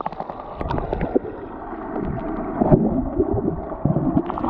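Muffled water sound heard underwater through the camera, with gurgling and bubbling from swimmers kicking close by, and a few faint clicks.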